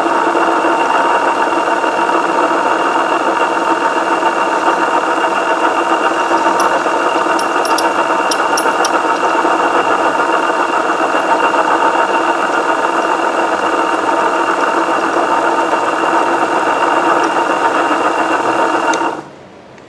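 Electric coil-winding machine spinning an aluminium voice-coil former as it winds on the third layer of copper magnet wire: a steady, even motor whine at constant speed that cuts off sharply about 19 seconds in.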